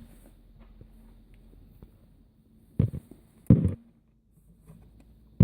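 Faint steady hum with two short dull knocks near the middle, about three quarters of a second apart.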